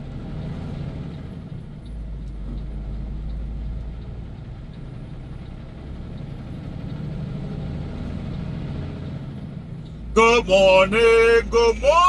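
Truck engine and road noise heard from inside the cab, a steady low rumble while driving. A man starts talking about ten seconds in.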